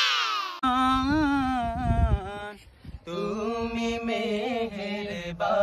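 The tail of a falling whoosh effect in the first half-second, then male voices singing a slow Bengali Islamic devotional song (gojol) with long, wavering held notes. The singing breaks off briefly about two and a half seconds in, resumes on the word 'tumi' ('you'), and swells near the end.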